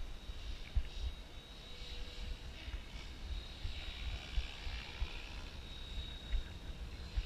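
Align T-Rex 700 Pro DFC electric RC helicopter flying at a distance: a steady high whine from its motor and rotor drive over a faint rotor hiss. Gusts of wind buffet the microphone with low rumbles.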